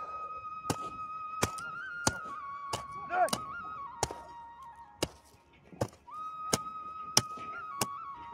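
A hand hoe chopping into hard, dry soil, one sharp strike about every two-thirds of a second. Background flute music plays over it and drops out briefly about five seconds in.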